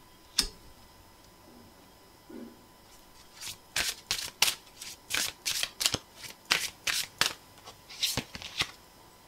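A deck of tarot cards being shuffled by hand. There is a single snap about half a second in, then from about three seconds in a run of quick card slaps, about three a second, which stops shortly before the end.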